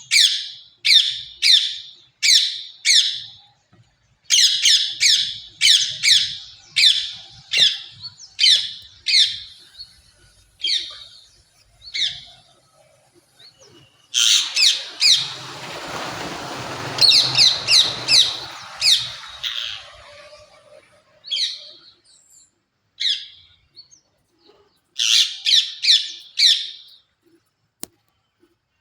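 Parrot giving short, shrill calls in quick runs of four to six, with pauses between runs. Partway through, a few seconds of rustling noise lies under the calls.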